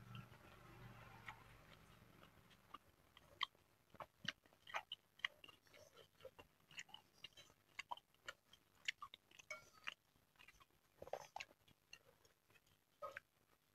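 Quiet close-miked eating of mini meatballs in egg broth: soft chewing at first, then from about three seconds in a long, irregular run of short sharp clicks and wet smacks from the mouth and from plastic spoons working in a glass bowl.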